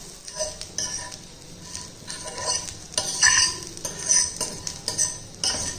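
Slices of steamed pearl millet dumpling sizzling in a stainless steel pan with a little coconut oil as they are turned over by hand. Irregular spells of light sizzle and scraping come with small taps against the pan.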